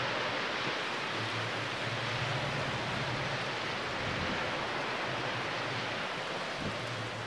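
Steady rushing seaside noise of the open air, with a low steady hum underneath that drops out briefly about a second in and again near the end.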